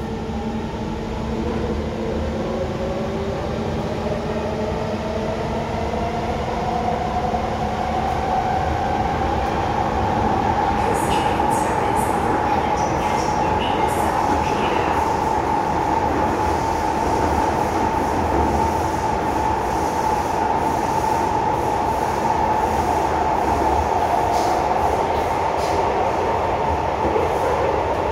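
C151 metro train's traction motors whining as the train accelerates, the pitch climbing over the first ten seconds and then holding steady as it runs at speed, over wheel-on-rail rumble with scattered sharp clicks.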